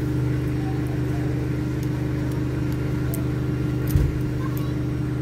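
Steady low drone of a train running, heard from inside the carriage, with a single thump about four seconds in.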